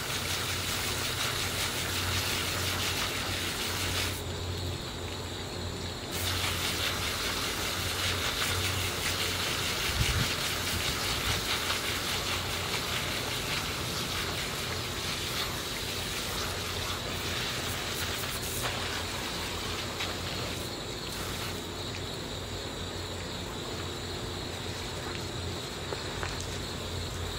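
Garden hose spray nozzle jetting water against a pleated paper Intex pool filter cartridge: a steady hissing spray that thins out briefly about four seconds in.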